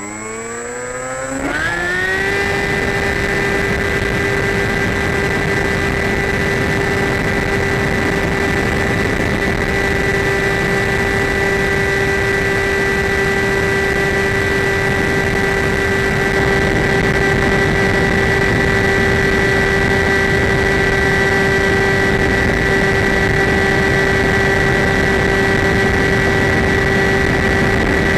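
Electric motor and propeller of a Skywalker radio-controlled plane spinning up, the whine rising in pitch over the first two seconds, then running at a steady high pitch over a rushing noise.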